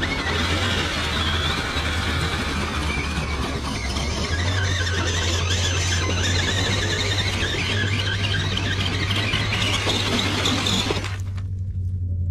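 Electric RC crawlers' brushless motors and gear trains whining under load as they climb, over a steady low hum. The high whine cuts off abruptly about eleven seconds in.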